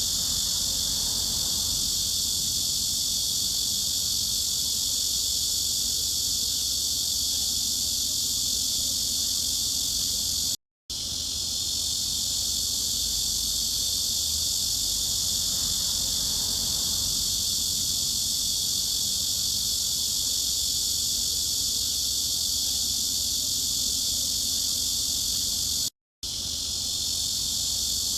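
A chorus of cicadas droning: a steady, high buzz, cut to silence for a split second about ten seconds in and again near the end.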